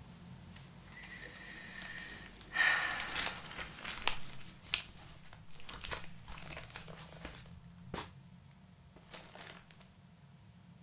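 Paper crinkling and rustling in irregular crackles, loudest about two and a half seconds in and thinning out after about eight seconds.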